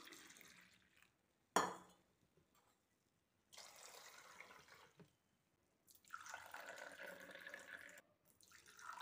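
Herbal milk tea being poured in short streams of a second or two. There is one sharp clink about one and a half seconds in.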